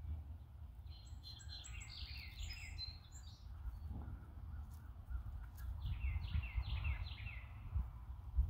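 Faint bird chirping: a run of quick high chirps about a second in and another around six seconds, over a low steady rumble.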